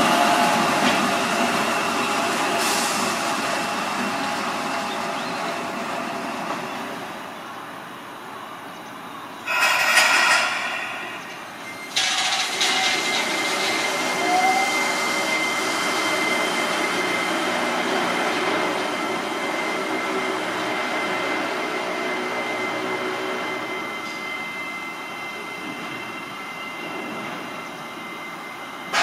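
Seibu 8500 series 'Leo Liner', a rubber-tyred automated people mover, running along its concrete guideway and fading as it draws away. There is a short loud burst about ten seconds in. After a sudden change, a second train pulls out with a steady high tone over the running noise, which fades slowly as it moves off.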